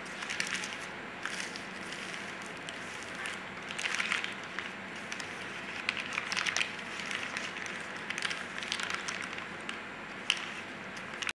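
Paper rustling and crinkling as it is folded, in irregular crackly bursts that swell about four and six seconds in, with one sharp crackle near the end.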